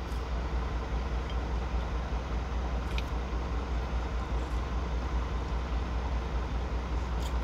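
Semi-truck engine idling, a steady low rumble heard inside the cab, with a couple of faint sipping or spoon clicks from eating soup off a wooden spoon, about three seconds in and near the end.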